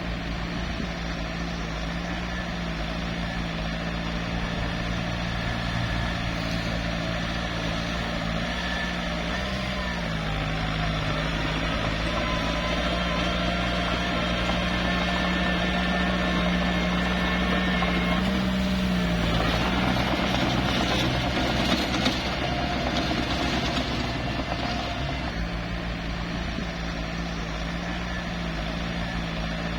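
Small bulldozer's diesel engine running steadily while pushing dirt, its pitch dipping briefly about ten seconds in and rising then dropping again around eighteen to nineteen seconds in. A short knock is heard about twenty-two seconds in.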